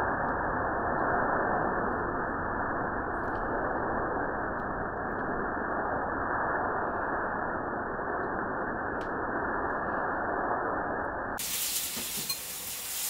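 A flaming wok of beef sizzling over a high-flame gas burner, heard slowed down: a steady, dull rushing noise with the high end cut off. About 11 seconds in it returns to normal speed as a brighter, hissing sizzle.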